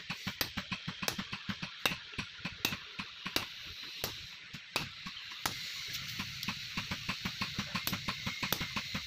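Hand hammer striking a top tool held in tongs on a red-hot steel pickaxe head at the anvil, forging it toward a hammer head. The blows come in a fast, regular run of about three strikes a second.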